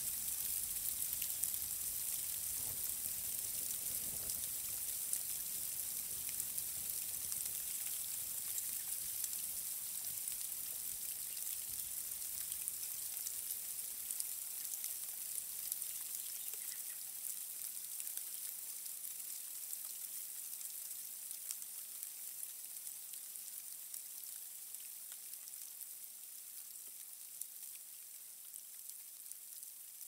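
Rain falling steadily: a fine, even hiss with scattered drop ticks, growing slowly fainter.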